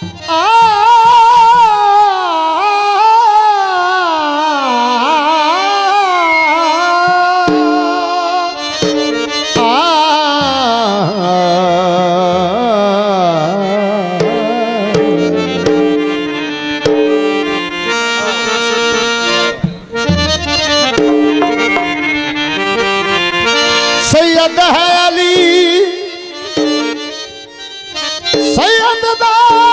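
Devotional qasida performance through a PA: a man sings a wavering, ornamented melody for the first several seconds, then a harmonium carries stepped, held notes with tabla, and the voice comes back in near the end.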